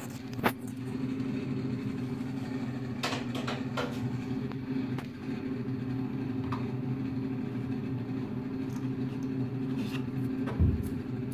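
Brushless electric motor of a homemade RC boat running at a steady speed, giving an even hum. Several sharp plastic knocks as the hull is handled, and a dull thump near the end.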